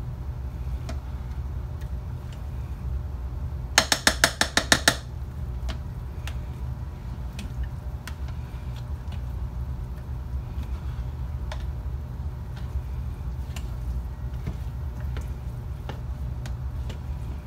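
Metal utensils clinking against a slow cooker as meatloaf mixture is scraped into it. About four seconds in comes a quick run of about eight sharp taps, like a utensil knocked on the pot to shake food off. Light clinks and scrapes follow, over a steady low hum.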